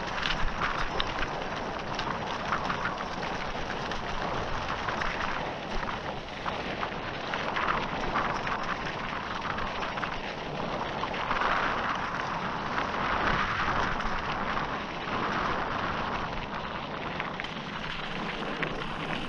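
Mountain bike tyres rolling over loose rock and gravel, with a steady crunch of stones and many small clicks and rattles from the bike.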